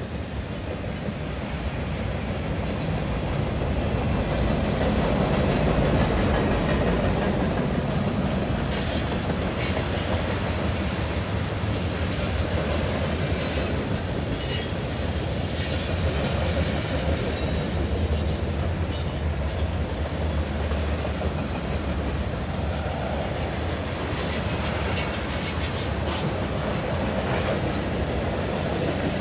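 Freight cars of a passing CN freight train rolling by: a steady rumble of steel wheels on the rails, with short high squeals and clicks now and then.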